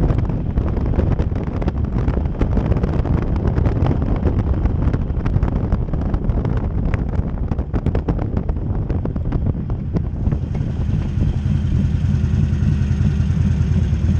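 Wind buffeting the microphone over a Harley-Davidson Sportster's air-cooled V-twin engine while the motorcycle cruises. About ten seconds in, the wind noise dies away as the bike slows, leaving the engine's low, steady running note.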